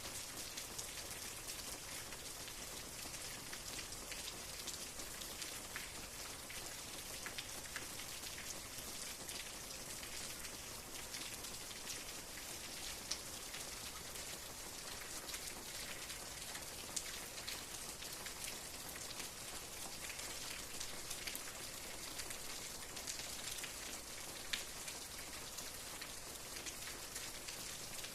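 Steady rain, an even hiss with many individual drops ticking on a surface, a few landing louder than the rest.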